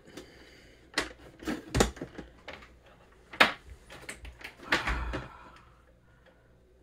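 Plastic instrument cluster and its wiring connector handled on a workbench: a string of sharp clicks and knocks as the connector is pushed in and the cluster is turned over, with a loud knock about a second and a half in and another about three and a half seconds in.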